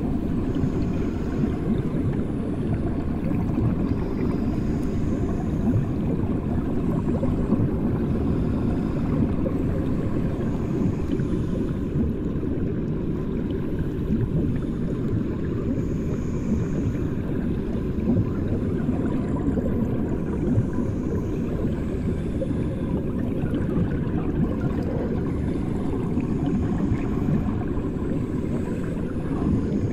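Muffled underwater sound of bathwater, as heard with the ears or microphone below the surface: a steady low rumble with fine crackling.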